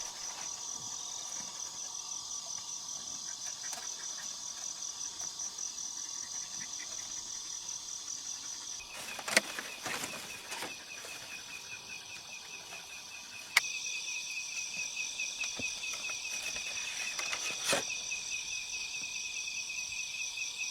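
A steady chorus of insects chirring in fast even pulses, with a second, lower-pitched insect starting up abruptly about two-thirds of the way through. A few sharp knocks sound over it, about halfway through and near the end.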